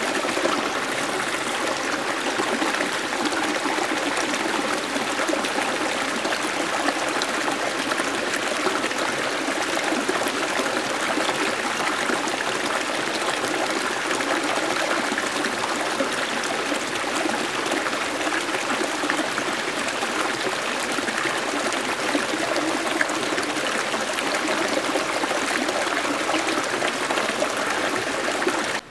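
A small stream of water running and trickling steadily over and between rocks into a pool.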